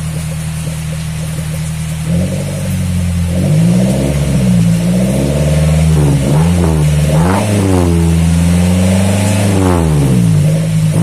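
Pickup truck engine sounding through a newly fitted Spoon Sport aftermarket muffler: it idles steadily, then from about two seconds in it is revved again and again, the pitch rising and falling with each blip of the throttle.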